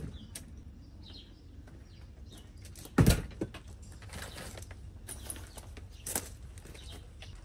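A front door opening with a loud clunk about three seconds in, followed by clicks and rattling as a folded camping chair's metal frame is picked up, around six seconds in.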